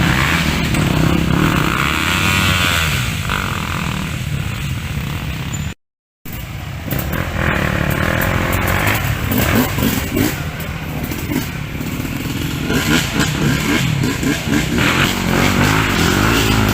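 Trail motorcycle engines revving hard, their pitch rising and falling again and again, with the sound cutting out briefly about six seconds in.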